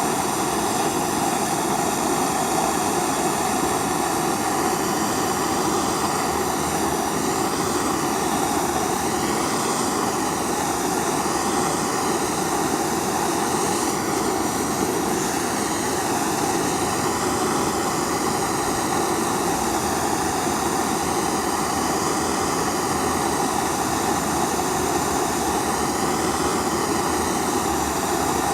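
Gas torch flame burning steadily, heating a damp coating of borax and fumed silica onto a titanium bar.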